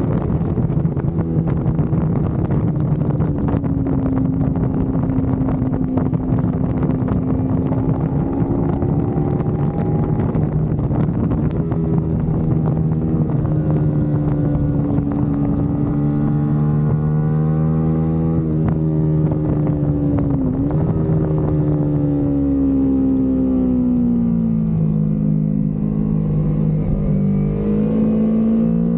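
Motorcycle engine running steadily at riding speed, with wind noise over the microphone. The engine note dips briefly twice around the middle, drops lower near the end, then begins to rise again.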